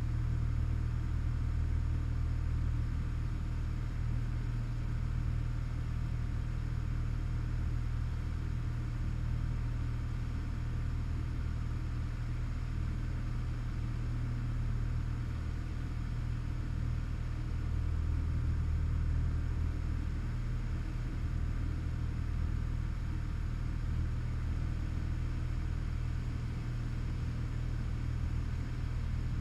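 Single-engine light aircraft's piston engine and propeller droning steadily in flight, heard inside the cabin as a low, even hum with a rushing air noise over it.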